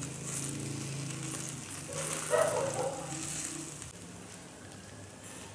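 Chicken pieces on skewers sizzling over hot charcoal just after being brushed with cooking oil. The sizzle is steady and grows briefly louder about two seconds in.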